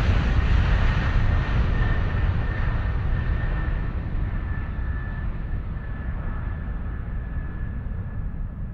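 Aircraft rumbling and rushing as it passes away into the distance, fading steadily as its hiss grows duller, with a faint steady engine whine.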